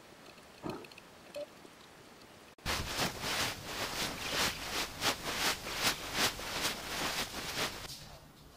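Shallow sea water washing and splashing at the sand's edge, a rapid patter of small splashes about three a second. It starts suddenly after a couple of quiet seconds with faint thuds and fades out near the end.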